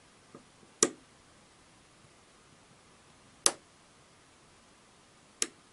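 Colt Single Action Army-style revolver being slowly cocked by hand: three sharp metallic clicks a couple of seconds apart, with a faint tick just before the first, as the hammer and the internal lockwork (sear and cylinder bolt) click through their stages toward full cock.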